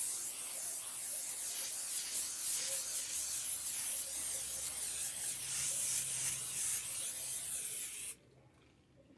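Aerosol can of Pam cooking spray hissing steadily into a frying pan for about eight seconds, then cutting off abruptly.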